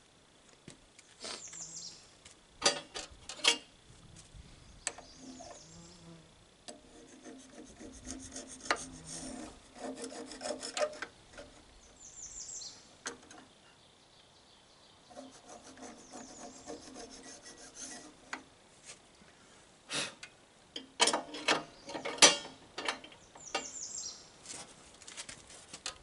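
A cloth rag scrubbing over the cutterhead blades and feed roller of a benchtop thickness planer, wiping off built-up tree sap. There are a couple of sharp knocks against the metal a few seconds in and a cluster of them toward the end.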